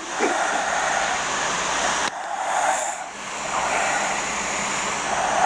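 A woman snoring, played back from a recording: long noisy breaths that swell and fade, with a sharp break about two seconds in.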